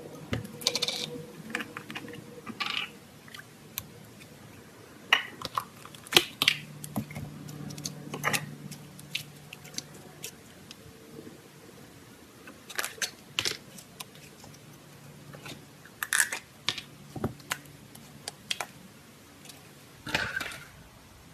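Irregular small clicks and taps, a few a second at most, over a faint low hum.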